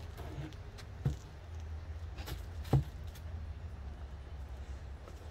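Two dull knocks about a second and a half apart, with a few fainter taps, as a cardboard shipping tube and a rolled floor mat are handled and the tube is set down, over a steady low rumble.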